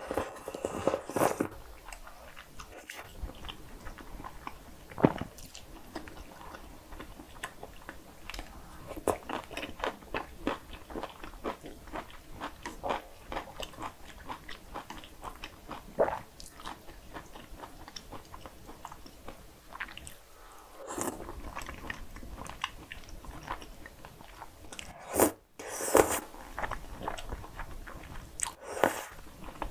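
Close-miked eating of cream spaghetti: noodles slurped in loud noisy bursts at the start and twice near the end, with chewing and many small wet mouth clicks in between.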